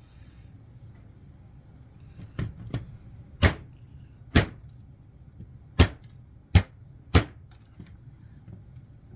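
A heavy bushcraft knife chopping into wood: two light strikes, then five hard chops, each a sharp crack, spaced about a second apart. The blade is biting deep without much force.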